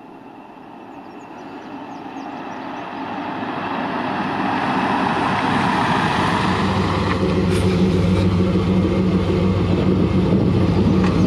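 1967 Ford F-250 ramp truck driving up, its engine and road noise growing louder over the first few seconds as it approaches. It then runs steadily at low speed as it pulls up close.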